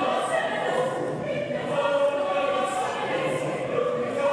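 A school choir singing, many voices together in harmony holding long notes.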